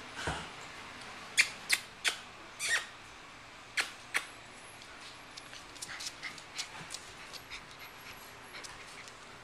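A puppy giving about six short, sharp yips in the first half, then light quick ticks of its claws on a tile floor as it walks.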